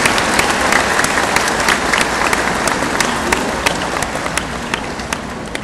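Audience applause, a dense patter of clapping that thins out and fades toward the end, leaving a few separate claps.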